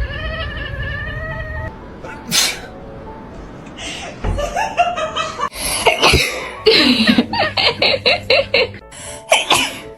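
A person sneezes once about two and a half seconds in, then a cat meows and yowls over and over, loudly through the second half, over background music.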